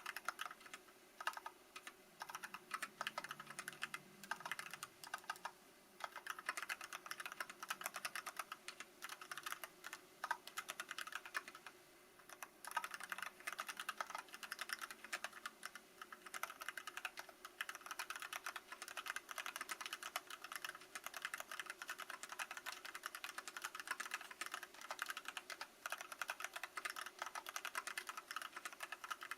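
Continuous fast typing on an Archon FX mechanical keyboard with Kailh Box Black linear switches on an aluminium plate, in stock condition: a dense run of key clacks broken by a few brief pauses.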